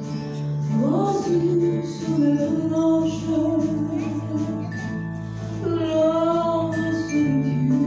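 A woman singing a slow French chanson with a live band, holding long notes with vibrato over steady bass notes; her voice slides up about a second in.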